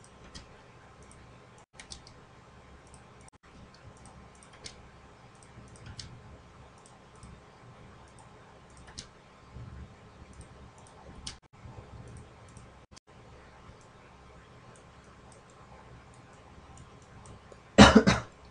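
Computer mouse clicking at irregular intervals over a faint low hum as surfaces are selected on screen. A short, loud burst of noise comes near the end.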